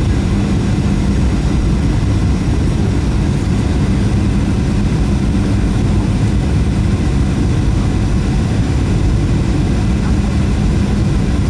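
Boeing 737-700's CFM56 turbofan engines heard from inside the cabin on approach: a steady, even drone with a constant low hum.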